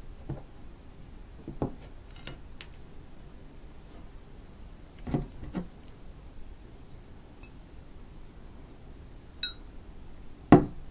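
A glass soju bottle and shot glass handled on a table: scattered soft knocks and taps, a short glassy clink about nine and a half seconds in, then a heavier thump of the bottle being set down near the end.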